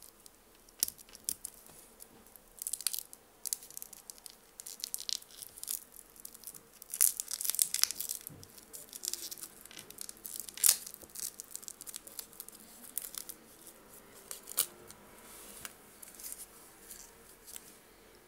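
Thin protective plastic film crinkling and tearing on a watch case as fingers work at it. Irregular crackles with a few sharp clicks, densest about seven to eight seconds in.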